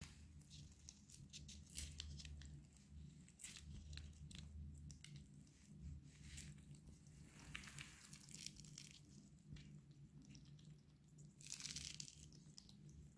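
Siberian chipmunk nibbling tangerine flesh: faint quick clicks and small crunches of its teeth biting into the segments. Twice, at about seven and twelve seconds in, a longer rustle of the peel being torn or handled.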